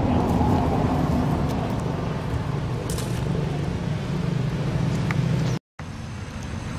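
Steady low drone of an engine running, like an idling vehicle, cut off abruptly about five and a half seconds in; after it a quieter background with a faint high steady whine.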